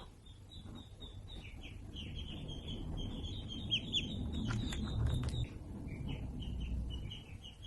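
Small birds chirping over and over in quick, short high notes, with a low rumble underneath and a few sharp clicks midway.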